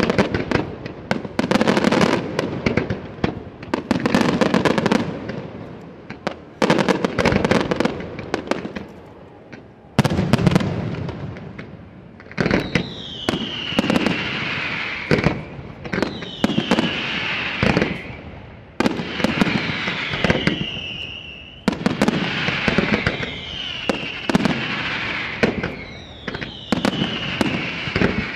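Aerial fireworks display over water: a rapid run of bangs from bursting shells and comets, then, from about halfway on, a series of whistles falling in pitch, each followed by crackling, repeating every second or two.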